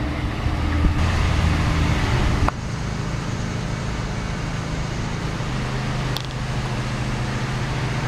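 Street traffic noise: a motor vehicle engine running with a steady low rumble, dropping abruptly about two and a half seconds in and carrying on more quietly.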